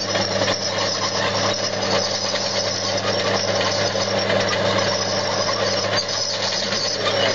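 Tractor engine running steadily under load while pulling a plough, a constant low hum with no change in pitch.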